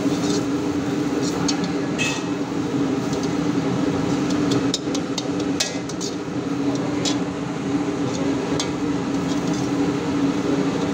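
Metal spatula scraping and clicking against a steel wok as a shredded cabbage mixture is stir-fried, with irregular sharp clinks over a steady hum.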